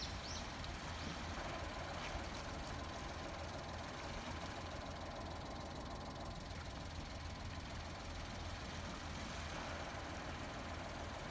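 Steady outdoor background noise, a low rumble under a soft hiss, with a couple of short high chirps right at the start.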